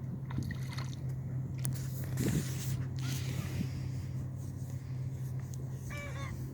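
Motorboat engine running with a steady low hum, with bursts of water and wind noise about two to three seconds in.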